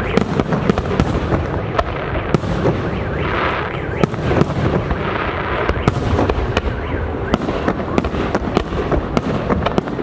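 Aerial firework shells of a fireworks display bursting, a rapid, irregular series of sharp bangs several times a second.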